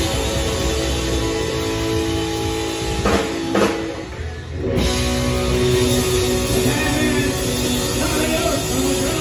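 Live rock band playing a loud electric-guitar jam over bass and drum kit. About three seconds in, two sharp hits are followed by a brief drop of about a second before the full band comes back in.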